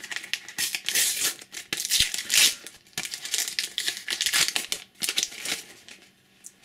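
A Panini sticker packet being torn open and its wrapper crinkled by hand: a run of irregular rustling and tearing bursts that die down near the end.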